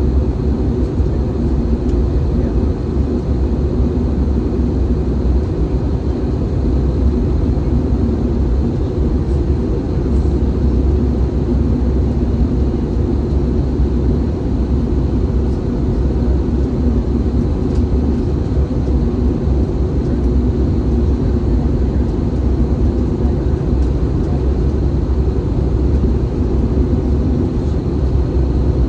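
Steady, deep cabin roar inside an Airbus A320-214 in descent, heard from a window seat beside the engine: CFM56 turbofan engine noise and airflow, even throughout, with a faint high whine.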